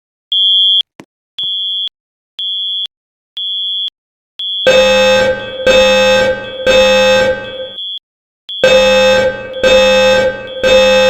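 Kedron-inspired fire alarm: a high-pitched beep sounds about once a second, then a loud buzzing horn tone joins about four and a half seconds in, sounding in groups of three long blasts with a short pause between groups, while the high beep continues.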